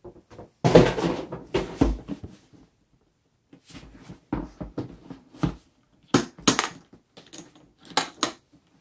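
A hard plastic power-tool carry case being handled on a wooden table: a string of knocks, scrapes and clicks as it is turned over and set down, with a pause of about a second near the middle and sharper clicks in the second half.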